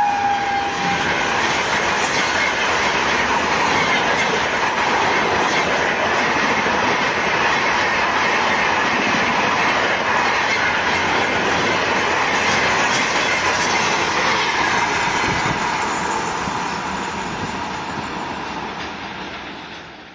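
An electric locomotive's horn drops in pitch and dies away in the first second as it passes, then the Tejas Rajdhani Express coaches rush past at speed, wheels clattering over the rail joints. The noise fades away near the end as the train draws off.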